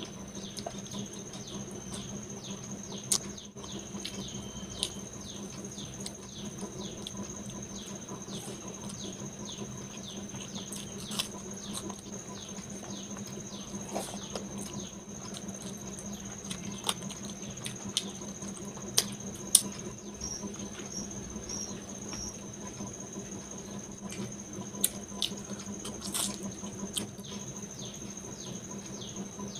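Hands handling food and dishes, mixing rice and curry by hand: scattered soft clicks, taps and squelches, a few sharper clicks among them. Under them runs a steady high-pitched drone with a faint low hum.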